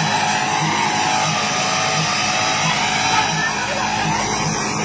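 People talking over a steady, loud rushing noise.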